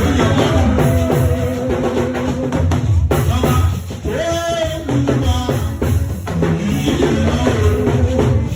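Church choir music: voices singing over a drum-kit beat with a strong bass drum.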